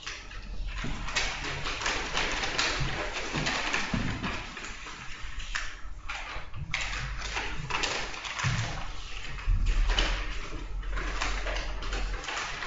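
Papers rustling and being shuffled on a table, with small taps and knocks, over a low steady electrical hum that grows louder for a couple of seconds after the middle.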